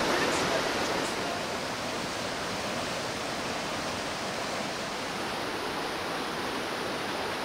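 Steady rush of flowing water, a little louder in the first second and then even.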